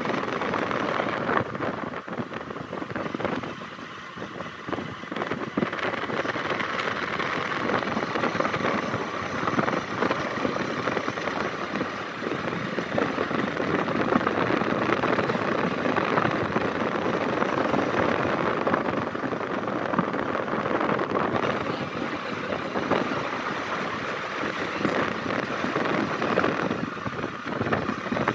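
Steady wind rush over the microphone mixed with the running and road noise of a moving vehicle.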